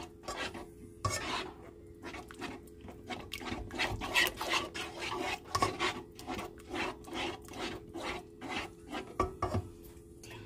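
Metal spoon stirring and scraping through thick cheese sauce in a frying pan, mixing in a little flour, in quick repeated strokes at about two to three a second.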